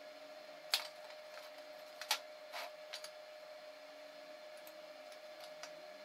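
Steel bracket plates handled and set against a steel welding table: a few sharp metal clicks and knocks in the first half, fainter ticks later, over a faint steady hum.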